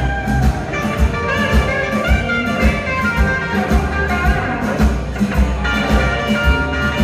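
Live blues band playing with a steady beat: a saxophone horn section and guitars over drums.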